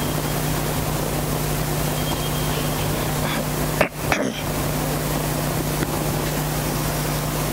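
A steady hiss with a low, even hum beneath it. It cuts out briefly with a couple of clicks about four seconds in.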